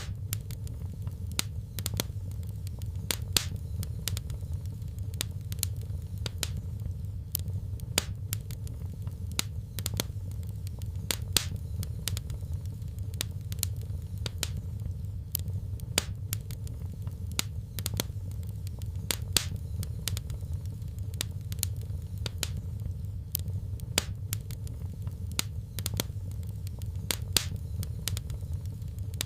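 Wood fire crackling in a fireplace: irregular sharp pops and crackles several times a second over a steady low rumble of the flames.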